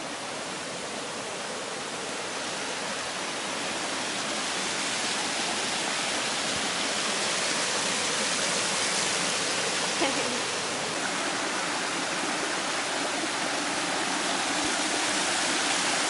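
Creek water rushing over a small rocky cascade into a pool: a steady hiss of falling water that grows louder over the first few seconds.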